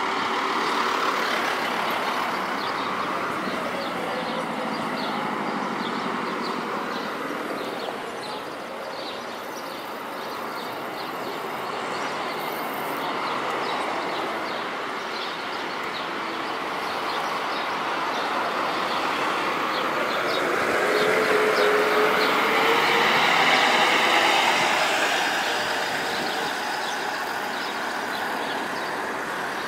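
Mercedes-Benz Intouro coach's diesel engine pulling away from a bus stop and driving off, running steadily and growing louder for a few seconds about two-thirds of the way through.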